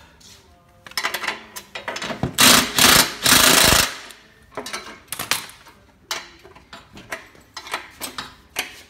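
Cordless impact driver hammering as it tightens a bolt into the table's steel leg frame, in two short bursts about two and a half seconds in, lasting about a second and a half in all. Metal clicks and clatter of the spanner and parts being handled before and after.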